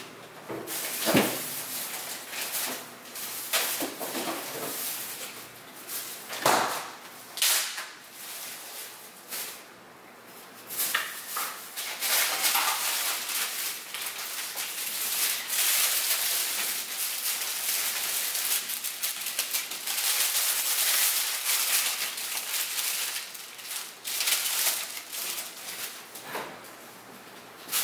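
Shopping bags and food packaging rustling and crinkling as groceries are unpacked, with a couple of sharp knocks of items set down on a counter in the first few seconds.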